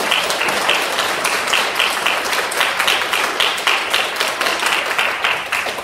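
An audience of schoolchildren and adults applauding, a dense patter of many hands clapping. One pair of hands close by stands out, clapping about four times a second. The applause begins to die away near the end.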